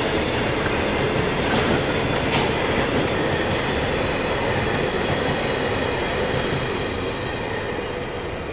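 Freight train's container wagons rolling past on the rails in a steady rumbling rush, which fades over the last couple of seconds as the end of the train goes by.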